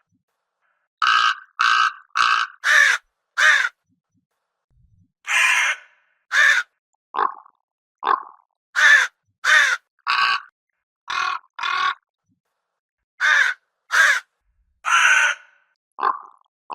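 Crow cawing: harsh caws in quick runs of two to five, with a few lower, shorter calls mixed in, and dead silence between the runs.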